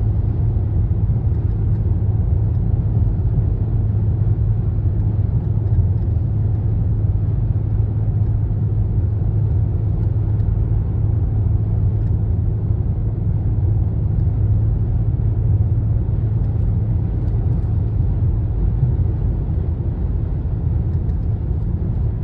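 Mercedes-Benz ML350 BlueTec's OM642 V6 diesel running with a steady low rumble.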